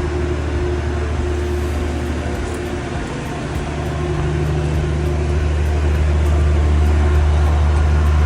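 A large engine running steadily with a deep, even drone, dipping slightly about three seconds in and then growing a little louder.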